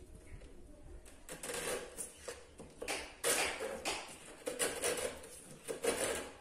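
A hand file rasping in short repeated strokes along the overhanging edge of freshly glued high-pressure laminate (Formica), filing the excess flush with the panel. The strokes come unevenly, one to three a second.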